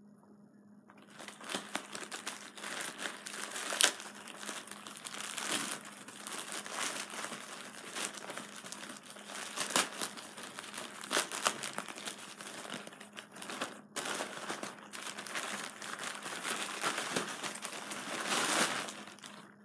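Packaging crinkling and rustling as a package is handled and opened, a dense run of sharp crackles that starts about a second in.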